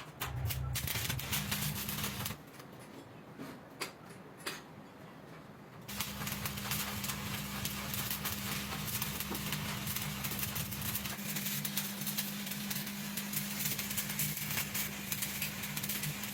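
Workshop noise: dense crackling over a steady electrical hum. It drops quieter for a few seconds, starting about two seconds in.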